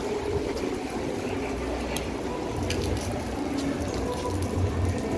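Steady rain falling: an even hiss, with an uneven low rumble underneath.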